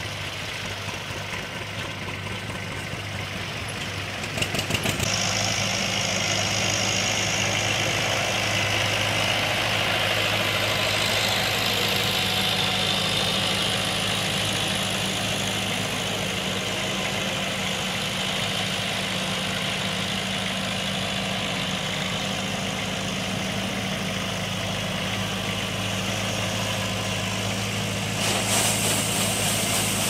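Tractor engines running at a steady idle, a low even hum that grows louder about five seconds in.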